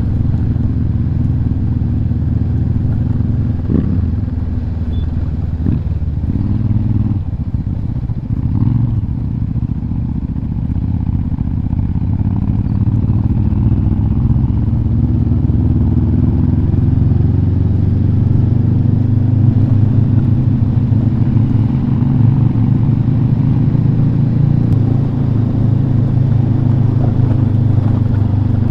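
Motorcycle engine running steadily under way, with a low, even drone. The engine note eases off about eight seconds in, then picks up and holds steady.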